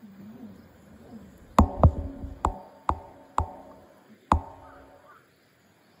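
Six sharp knocks at uneven spacing between about a second and a half and four and a half seconds in, each with a brief ring.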